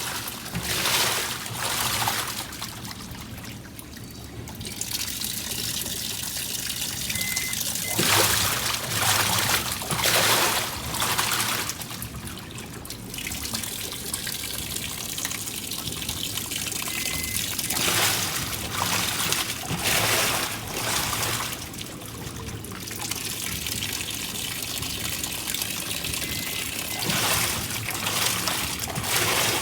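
Water trickling and splashing inside a washing machine, swelling into louder splashing surges every few seconds.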